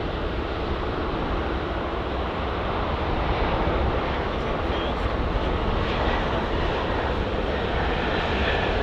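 Jet airliner engines heard as a steady, even noise that slowly grows louder.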